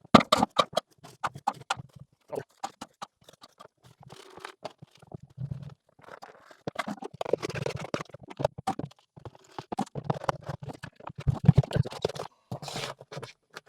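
Homemade hand sifter being shaken to sift a dry dust-bath mix: irregular rattling and tapping with scraping, loudest just after the start and again about eleven seconds in.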